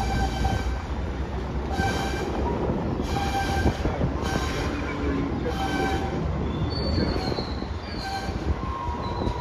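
Freight cars rolling past on curved track, their steel wheels squealing in repeated high-pitched screeches every second or two over a steady low rumble.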